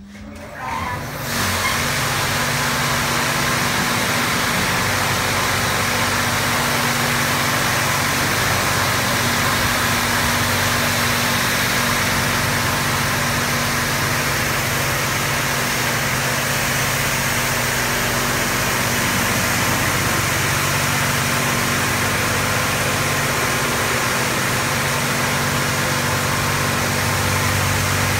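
SHUIFU touchless car-wash machine blasting high-pressure water over a car: a steady hiss of spray over a steady low hum. It builds up in the first second or two.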